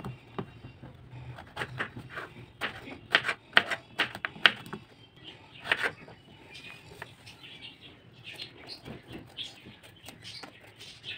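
A knife chopping bottle gourd into cubes on a wooden cutting board: a run of quick, irregular sharp taps as the blade strikes the board, loudest in the first half. Later come softer scraping sounds as the knife cuts the peel from a pumpkin.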